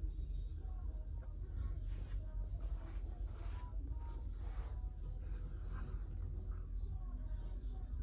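A short, high-pitched chirp repeating steadily, about three chirps every two seconds, over a constant low rumble.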